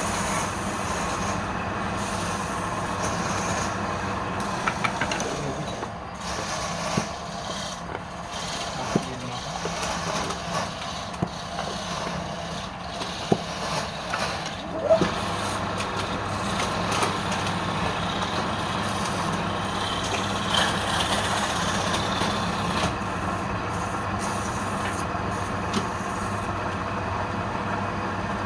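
Wood lathe running with a steady motor hum, a few sharp knocks in the middle.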